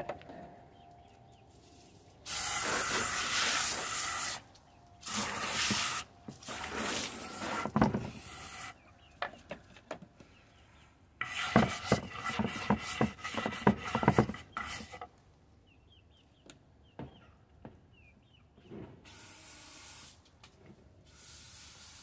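A scrub brush rasping back and forth in a terracotta water dish in quick strokes, with spells of water spraying from a garden hose.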